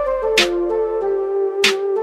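Background music: a flute-like melody of held notes, with a sharp percussive hit about every second and a quarter.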